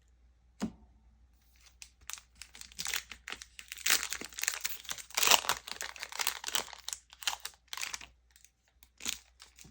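Foil wrapper of a Pokémon TCG booster pack crinkling and tearing as it is opened, a dense crackle from about two seconds in to about eight seconds, with a few sharp clicks of handling before and after.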